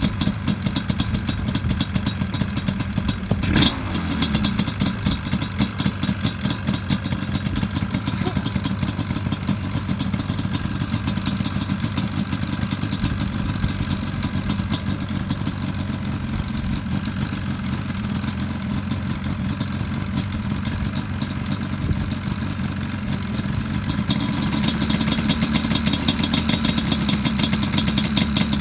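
Yamaha Banshee 350's parallel-twin two-stroke engine, breathing through Toomey dual exhausts and pod filters, idling with a fast, rattly pulse while it warms up after a cold start. There is one sharp crack about three and a half seconds in, and the engine gets a little louder near the end.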